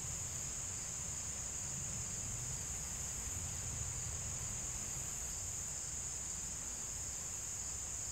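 Steady high-pitched chorus of insects, unbroken, over a low rumble.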